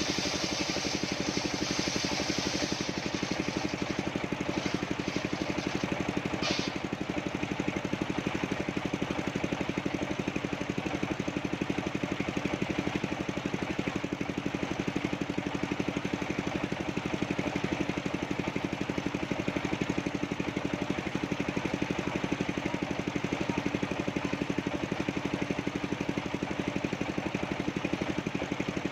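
Engine of a mobile sawmill running steadily with a fast even throb. A hiss in the first three seconds fades out, and there is one brief sharp sound about six and a half seconds in.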